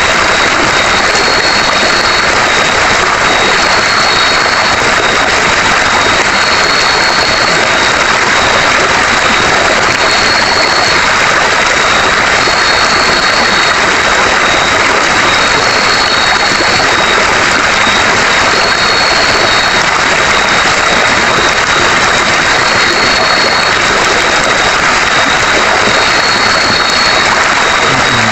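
Steady rushing of a river, loud and unbroken, with a thin high insect whine held throughout and a slightly higher insect note pulsing for about a second every three seconds or so.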